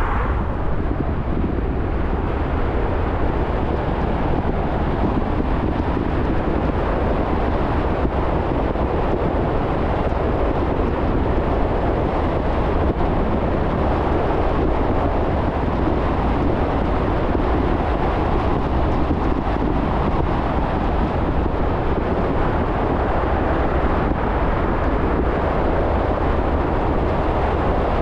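Steady driving noise of a car on the road: tyre and wind noise over a constant low rumble, with no changes or distinct events.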